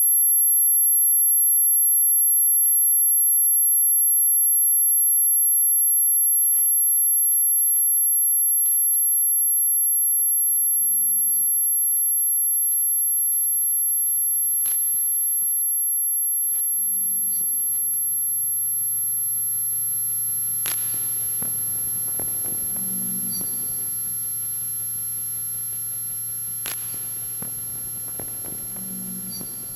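Experimental drone music: a piercing, very high steady tone over a low steady hum, with soft low pulses and a few sharp clicks recurring about every six seconds, the whole slowly fading down.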